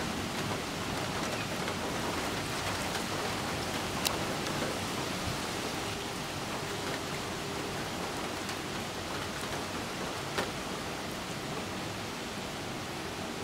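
Steady rain falling in a thunderstorm, an even hiss, with two sharp ticks about four and ten seconds in.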